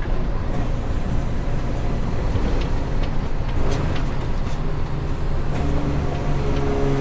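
Semi-trailer truck's diesel engine running under way, with road and wind noise; in the last couple of seconds the engine note comes through steadier and clearer.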